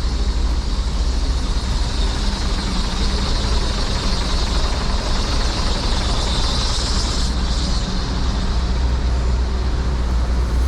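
Motor vehicle engines running with steady road traffic noise, a continuous low hum.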